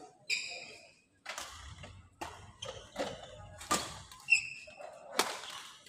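Badminton rally: rackets strike the shuttlecock about five times with sharp cracks, and sneakers squeak briefly on the court floor near the start and again near the end.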